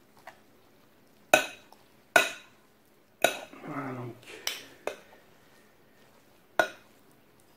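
A metal fork and spoon clinking against a ceramic bowl while tossing cooked pasta: about six sharp, uneven clinks, with softer stirring sounds between.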